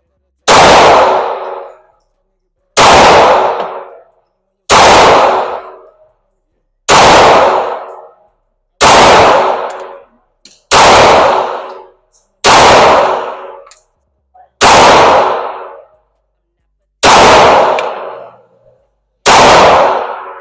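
Glock 45 9mm pistol fired ten times in slow aimed fire, about one shot every two seconds, each shot ringing out with a long echo.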